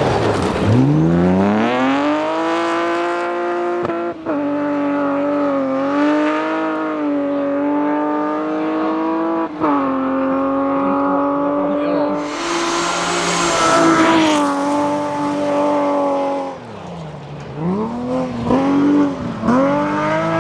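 BMW-powered rally car engine at full throttle: the revs climb, then hold high, with two brief lifts. A spray of hiss comes in midway. Near the end the revs drop and the engine gives several quick throttle blips before pulling away again.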